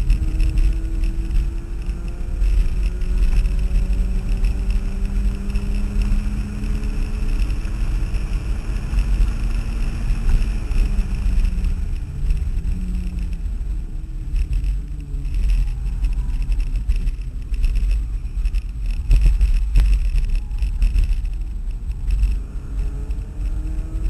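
Turbocharged Mazda Miata's four-cylinder engine heard from inside the cabin under hard driving on track, its pitch climbing in pulls and dropping for shifts and braking, over heavy low road and wind rumble.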